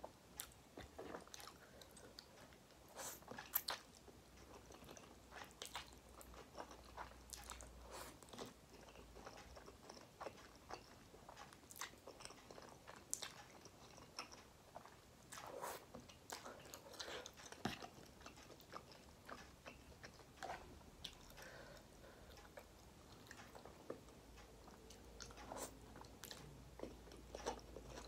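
Close-up mouth sounds of a person eating noodles: chewing, with many short, irregular clicks and smacks.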